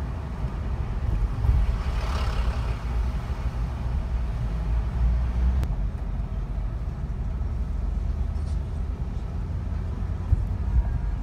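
Steady low rumble of a car driving in city traffic, heard from inside the cabin, with a brief hiss about two seconds in.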